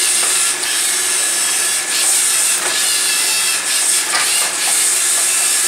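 LEGO Mindstorms EV3 robot's motors whirring as it drives, a steady high-pitched whir broken by a few brief dips as it changes from one move to the next.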